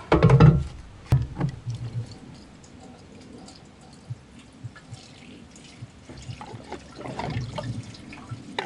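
Clunks and a click as the scooter's fuel-tank filler cap is handled, then gasoline poured from a plastic gas can into the drained fuel tank. The pour gets louder in the last two seconds.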